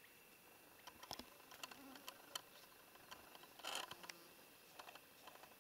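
Near silence with a faint steady high tone, a few soft clicks, and a brief rustle about three and a half seconds in.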